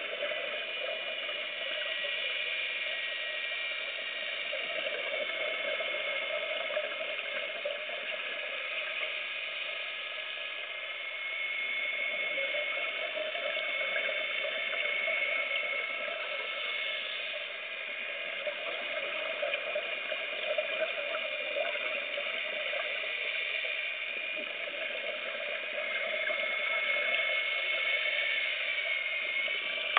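Underwater ambience picked up through a camera housing: a steady watery hiss and bubbling with faint high whining tones, swelling and easing slowly.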